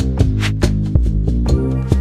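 Instrumental background music: quick repeated notes, about five a second, over held low chords, moving to a new chord about one and a half seconds in.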